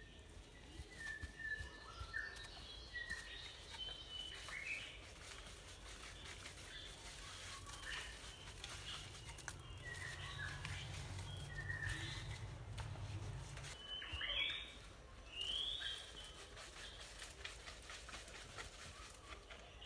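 Wild birds chirping, a scattering of short whistled notes with two louder arching calls about three-quarters of the way through. A faint low hum runs for a few seconds midway, under faint ticks and scrapes.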